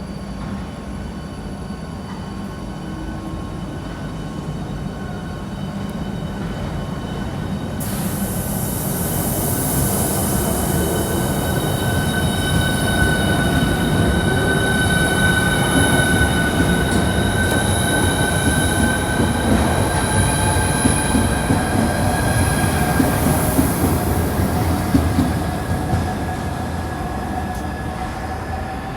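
High-speed electric train moving through the station: a low rumble under several high whining, squealing tones. A hiss joins about eight seconds in, and the sound grows louder toward the middle and fades slightly near the end.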